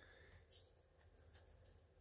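Near silence: room tone, with two faint clicks about half a second and a second and a half in.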